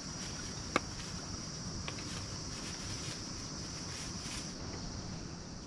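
Crickets and other insects chirping in a steady evening chorus, with one sharp click or pop about a second in and a fainter one shortly after.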